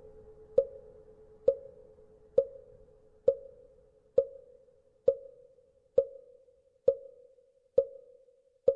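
Wooden fish (mõ), the hollow wooden temple block, knocked at a steady even pace, about one stroke a second, ten strokes in all; each knock is sharp with a short hollow ring.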